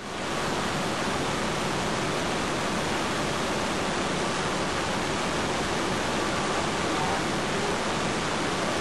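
Rolls-Royce turbofan jetliner engine running steadily at full power, a constant, even rushing noise with no change in level.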